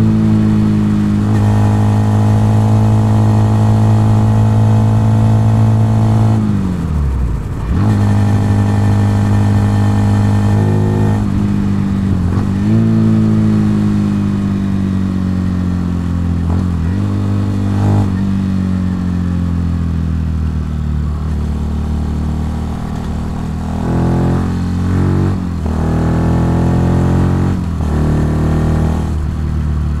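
Benelli TNT 125's single-cylinder four-stroke engine running at a steady cruise. Its note drops sharply and picks back up about seven seconds in, then sinks slowly as the bike eases off. Near the end it rises and falls several times as the throttle is worked.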